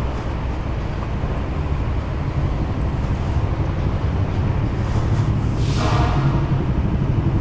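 Yamaha XMAX 300 scooter's single-cylinder engine running steadily at low speed, with a brief higher-pitched sound about six seconds in.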